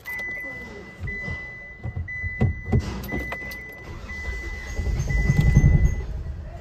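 A car's warning chime beeping in even tones about once a second over the idling diesel engine of a Hyundai Grand i10, whose low running swells about five seconds in. The engine is hunting and knocking at idle, firing unevenly, a misfire traced to the injectors. A few sharp knocks sound in the middle.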